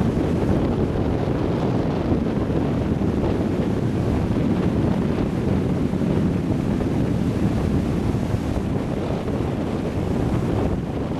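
Steady rushing roar of a passenger hovercraft's engines and twin ducted propellers as it runs over the sea, mixed with wind buffeting the microphone.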